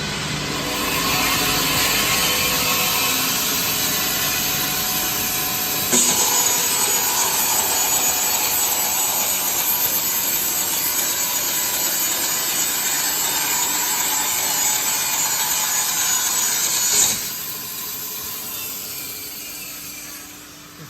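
The cutting saw of an EPS sandwich panel production machine running through a panel, a harsh steady sawing noise with a high whine. It starts sharply about six seconds in and cuts off suddenly near seventeen seconds, leaving the machine running more quietly.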